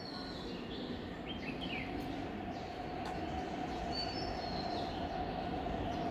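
A steady mechanical running sound: a low rumble under a constant mid-pitched hum, growing slightly louder, with a few short high chirps over it.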